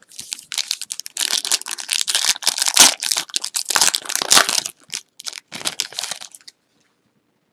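A Donruss Optic basketball card pack's wrapper being crinkled and torn open by hand: dense crackling and rustling for about six seconds that stops sharply near the end.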